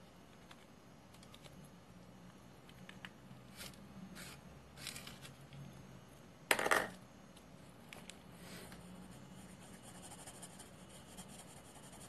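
Pencil being sharpened: a handful of short scraping strokes, the loudest about six and a half seconds in. Near the end, light scratching of pencil lead on paper.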